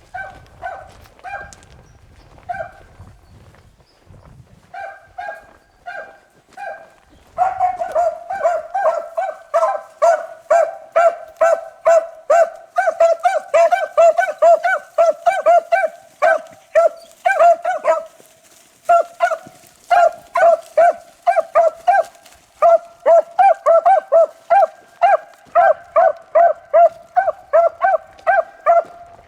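Beagles baying as they run a rabbit. A few spaced barks come first, then from about seven seconds in a fast, steady string of bays, several a second, with a brief pause a little past the middle.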